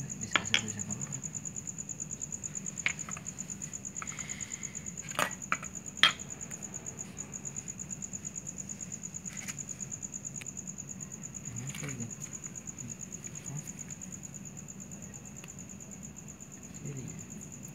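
Crickets trilling steadily at a high pitch, with a handful of sharp clicks and knocks, the loudest about six seconds in.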